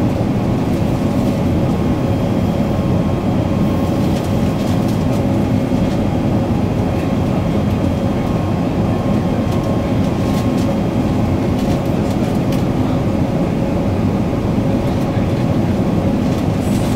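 Steady cabin noise inside an Airbus A380 on approach: a low rush of airflow and engine noise with a faint steady hum.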